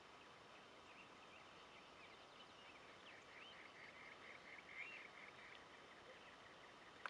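Faint dawn birdsong: scattered short chirps and whistles, with a quick chattering run of notes around the middle, over a quiet background hush.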